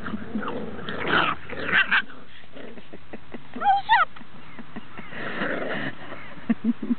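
Seven-week-old puppies play-fighting: rough growly scuffling noises, with a short high yelp about four seconds in.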